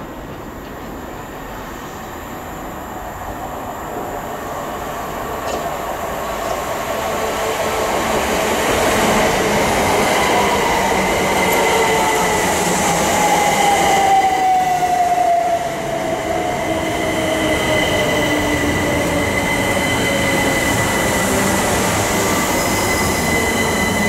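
Southeastern Class 375 Electrostar electric multiple unit running in along the platform, getting louder over the first nine seconds or so. From about ten seconds in, a whine falls steadily in pitch as the train slows, with a steady high squeal over it.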